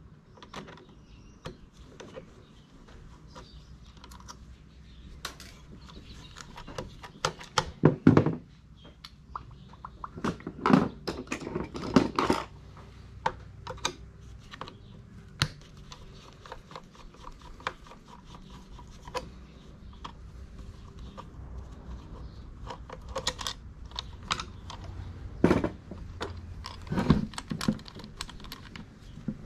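Metal parts of a sewing machine and hand tools clicking and knocking during disassembly. Light clicks are scattered throughout, with heavier clusters of knocks about eight seconds in, around eleven to twelve seconds, and twice near the end.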